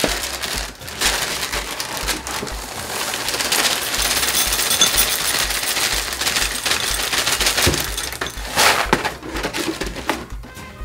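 Honey Nut Cheerios poured from the bag into a ceramic bowl: a dense, continuous rattle of many small pieces hitting the bowl, with a louder burst near the end.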